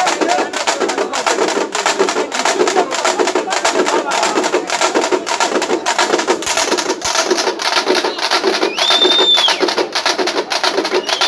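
A group of dappu frame drums played with sticks in a fast, driving beat. Near the end, a shrill whistle is held for about a second and then starts again.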